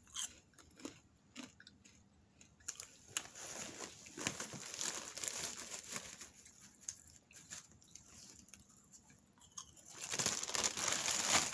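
Large plastic popcorn bag crinkling and rustling as a hand digs into it, between crunchy chewing of popcorn. The crinkling gets much louder about ten seconds in as the bag is handled.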